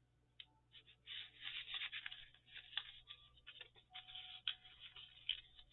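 Paper and card tags being handled and shuffled by hand: faint irregular rustling with a few light taps, starting about a second in.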